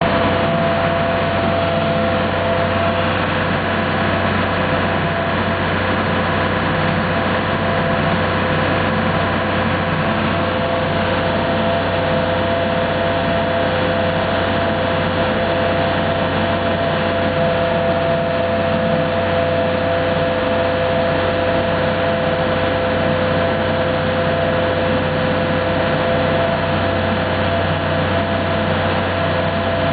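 Ferry boat's engine running steadily, heard from on board: a constant low hum with two steady whining tones over an even rushing hiss.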